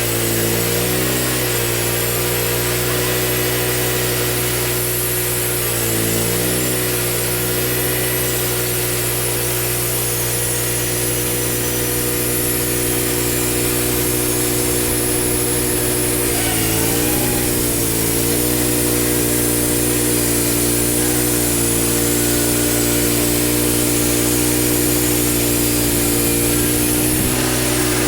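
Wood-Mizer portable bandsaw mill running steadily while sawing a maple log, the engine's pitch dipping briefly and recovering three times, over a steady high hiss.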